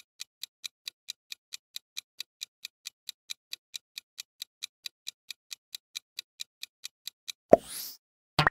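Quiz countdown-timer sound effect: a clock ticking quickly and evenly, about four to five ticks a second. The ticking stops near the end and gives way to a sudden loud hit with a short swish, then another brief hit just before the end.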